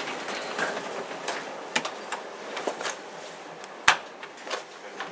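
Scattered light clicks and knocks over faint room background noise, with one sharp knock about four seconds in.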